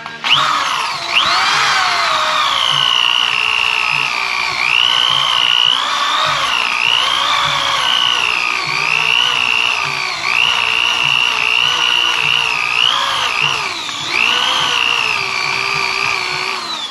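Astro Pneumatic air-powered eraser tool spinning its rubber eraser wheel against the boat hull to strip old adhesive. It makes a high whine that wavers in pitch as the wheel bears on the glue. It spins up at the start, dips and recovers near the end, and winds down with a falling pitch as it is shut off.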